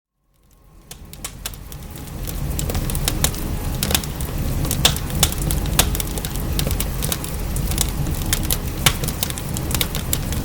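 Wood fire in a fireplace crackling with irregular sharp pops over a steady low rumble, mixed with falling rain; it fades in over the first two seconds or so.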